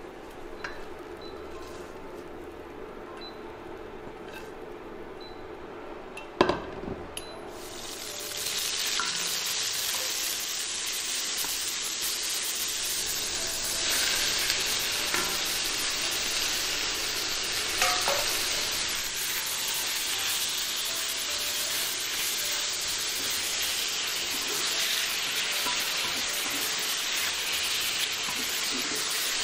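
A sharp knock about six seconds in, then loud, steady sizzling from about eight seconds in as sliced king oyster mushrooms and green pepper fry in hot oil in a wok, stirred with a wooden spatula, with a few clinks of the spatula against the pan.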